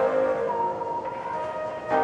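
Background music: sustained chords of held notes, with a chord change near the end.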